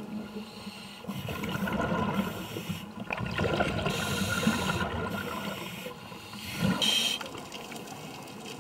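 Scuba regulator breathing underwater: hissing breaths and bubbling exhaust in surges of a second or two, with a shorter, louder one near the end.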